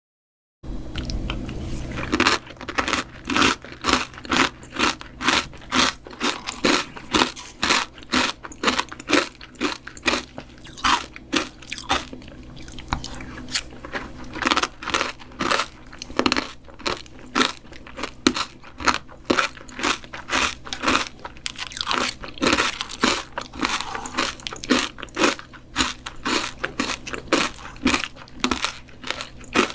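A person eating fruit yogurt close to the microphone, chewing with crisp crunching at a steady pace of about two chews a second.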